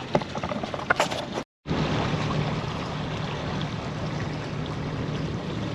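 Boat under way: a steady low engine hum with water rushing past the hull, and a few knocks in the first second and a half. The sound cuts out completely for a moment near the start.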